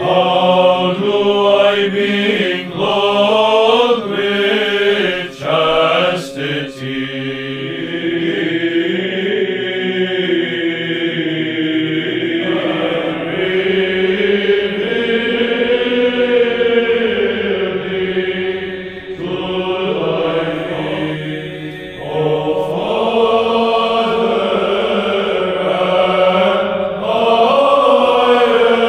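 Byzantine chant sung by a men's choir: a slow, flowing melody over steady held low notes.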